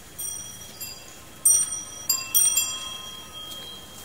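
Bells struck repeatedly, each a sharp high ring that hangs on, with about six strikes and the loudest about a second and a half in.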